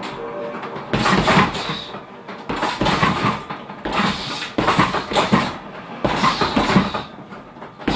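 Boxing-gloved punches landing on a hanging heavy bag in about five quick combinations, each a flurry of thuds with the bag's chain and metal stand rattling.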